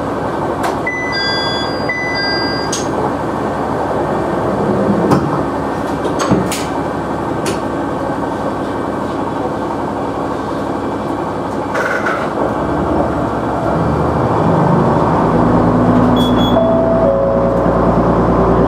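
KiHa 100 diesel railcar heard from inside the cab, idling at a station platform with a few short beeps near the start. About 13 seconds in its diesel engine revs up and grows louder as the train starts to pull away.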